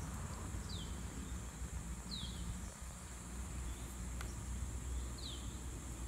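Steady high-pitched drone of insects, with a short falling chirp repeating about every second and a half, over a low rumble.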